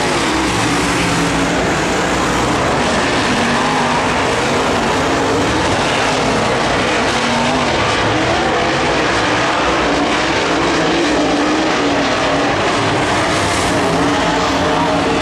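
A pack of UMP dirt modified race cars running at speed, their V8 engines blending into one continuous sound whose pitch wavers up and down as the cars go round.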